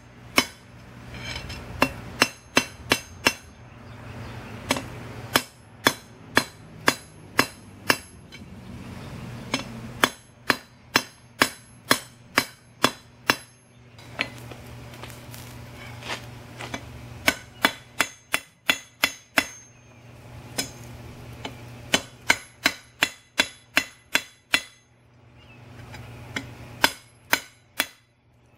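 Blacksmith's hammer striking a hot steel bar on an anvil in runs of quick blows, about three a second, each with a bright metallic ring, broken by pauses of a couple of seconds. A steady low hum fills the pauses.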